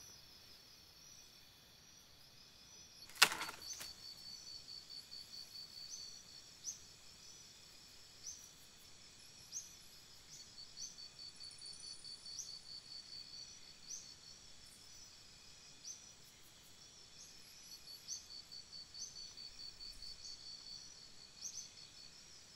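Faint chirping insects: high trills of rapid pulses that keep recurring, with short high chirps about once a second. One sharp click about three seconds in.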